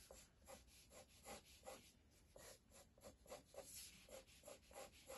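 Pencil sketching lightly on paper: a run of faint short scratchy strokes, about four a second, with a brief pause near the middle.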